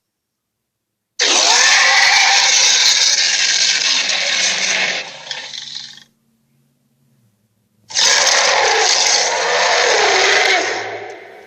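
Two dragon roar sound effects, each a long, noisy roar of about four seconds, with nearly two seconds of silence between them.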